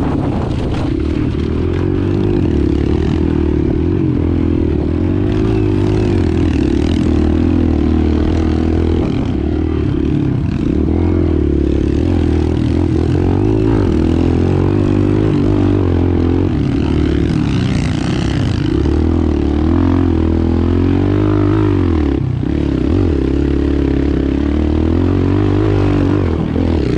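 Kawasaki KLX mini dirt bike's single-cylinder four-stroke engine running while being ridden on a dirt track. Its pitch rises and falls continually as the throttle is opened and closed through the turns.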